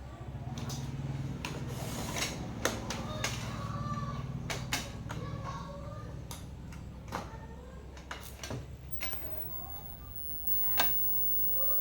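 Scattered sharp clicks and knocks of small tools and parts being handled during repair work, over a steady low hum.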